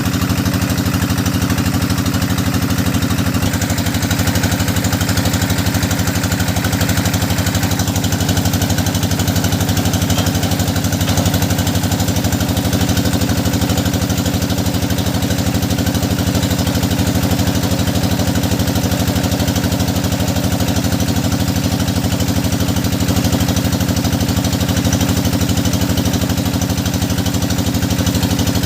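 Engine of a hydraulic deep-well drilling machine running steadily at a constant speed.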